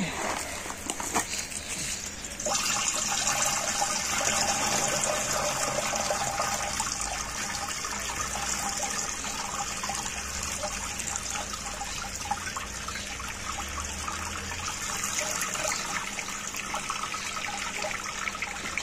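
Water from a garden hose pouring into the plastic tank of a 15-litre backpack pump sprayer, starting about two and a half seconds in and running steadily as the tank fills. A few short knocks come before the water starts.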